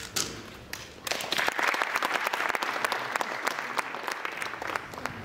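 A few quick clicks of a Rubik's cube being turned at the start, then an audience applauding, beginning about a second in and fading out near the end.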